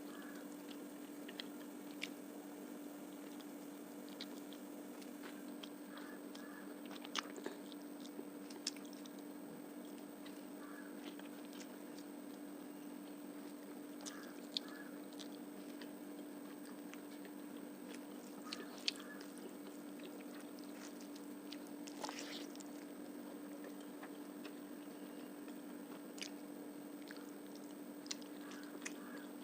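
Close-miked mouth sounds of someone eating fish curry and rice: scattered wet smacks and clicks of chewing at an irregular pace.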